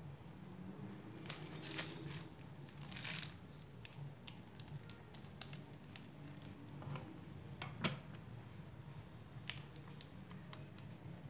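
Plastic piping bag crinkling and crackling in the hands as buttercream is squeezed out to pipe leaves, with scattered small clicks, over a low steady hum.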